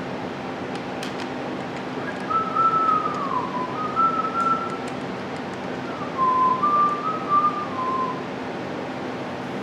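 A person whistling a short tune in two phrases, starting about two seconds in, over a steady background hiss.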